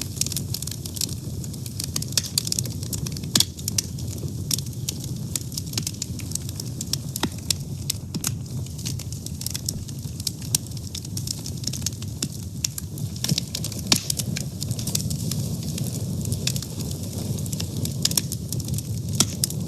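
Wood fire burning, with frequent sharp crackles and pops over a steady low rumble of the flames.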